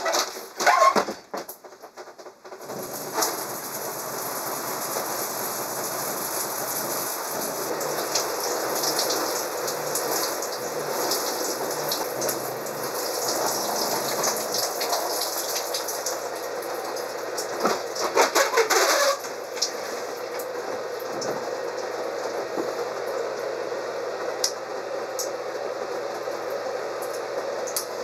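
Shower spray running: a steady hiss of falling water that starts about two and a half seconds in, after a couple of short squeaks, with a louder stretch of splashing around eighteen seconds in.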